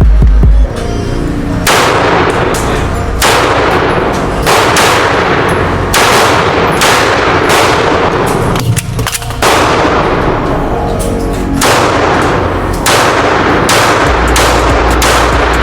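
Pistol shots fired one at a time, a dozen or so at uneven spacing of about a second, each with a short ringing tail.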